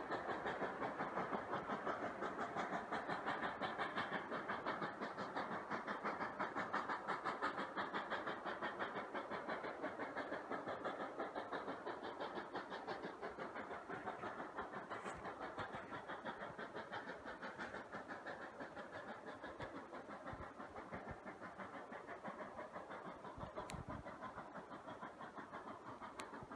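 Steam locomotive exhaust chuffing in a steady, even rhythm as D&SNG No. 476, a K-28 2-8-2 narrow-gauge engine, works its train, gradually fading.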